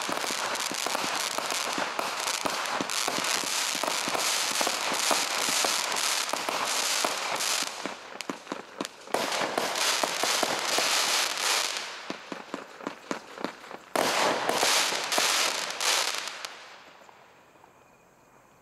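Brothers Pyrotechnics 'Shazam' firework cake firing: dense, rapid crackling and popping of bursting shells. There are two short lulls, and the barrage dies away near the end.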